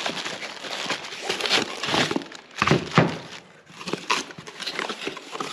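Cardboard box and packaging being handled during unboxing: irregular rustling and crinkling with scattered knocks.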